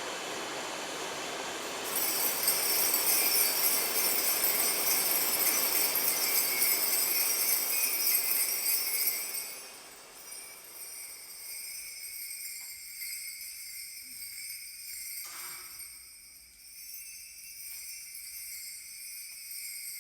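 Kaskawillas, Mapuche bronze bells, shaken continuously in a dense high jingle that imitates falling water. It opens on a steady rushing hiss, the jingling comes in loud about two seconds in, and it drops to a softer jingle about halfway through.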